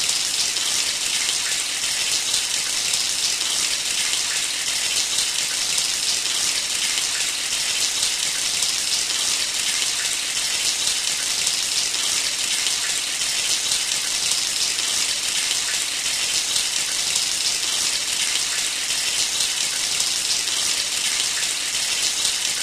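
Shower running steadily: a continuous spray of water hissing and pattering.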